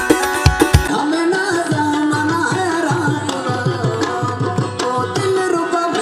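Background music with a steady drum beat and a wavering melody line; the track changes abruptly about a second in.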